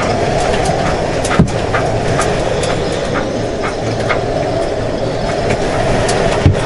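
High wind buffeting a boat up on jack stands: a steady rushing roar, with irregular rattles and clicks from the shaking boat and its loose fittings.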